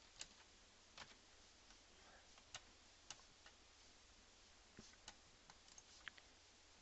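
Near-silent room tone with about a dozen faint, irregular clicks of a computer mouse.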